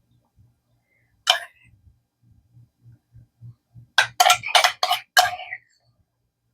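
A spoon clinking against dishes while sauce is spooned out: one clink, then a quick run of about five taps a few seconds later.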